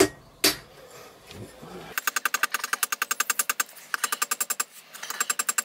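Hand hammer striking a hot railroad spike on a steel anvil: one blow about half a second in, then a rapid run of light blows with a bright metallic ring, broken by a short pause about halfway through.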